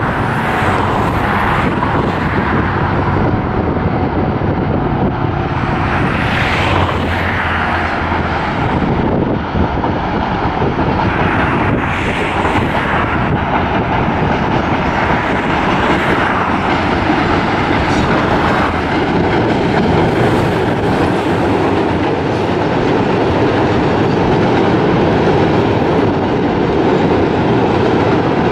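Diesel freight train passing: Fepasa locomotive D2352's engine running, then the container flatcars rolling by with steady, continuous noise from wheels on the rails.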